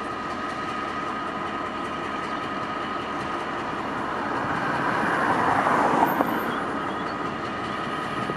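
SŽ class 648 EMD diesel locomotive idling at a standstill, a steady engine drone with a constant high whine. About five seconds in a broad rush swells up, peaks with a click, and dies away again.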